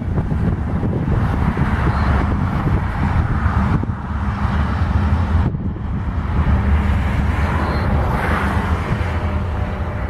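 A CSX freight train rolling past with a steady, loud low rumble, with wind on the microphone.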